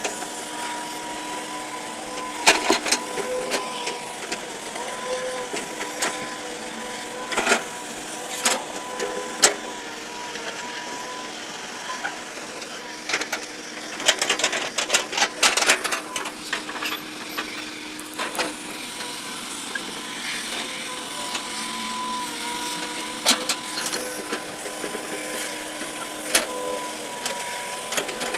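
Heavy-equipment engine running steadily with a whining hum, broken by repeated sharp metal clanks and knocks, several in quick clusters.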